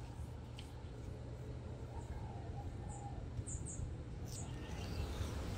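A cloth rubbing faintly over the steel of an axe head, with a few short, high chirps about halfway through.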